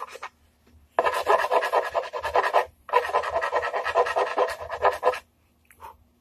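Hand file rasping across the painted edge of an electric guitar body, rounding off a corner. There are two long runs of quick strokes, one starting about a second in and the next after a brief pause.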